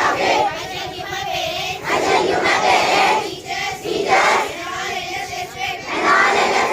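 A group of schoolchildren singing together in unison, in phrases of a second or two with short breaks between them.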